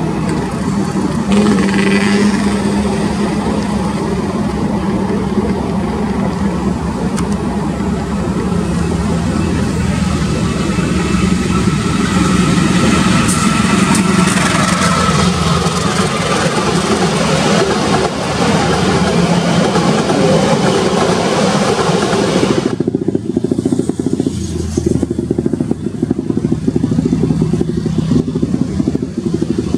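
CC203 diesel-electric locomotive hauling a passenger train past at close range: a steady diesel drone over loud wheel-and-rail noise. About three-quarters of the way through, the sound changes abruptly to a duller low rumble of the train running inside a tunnel.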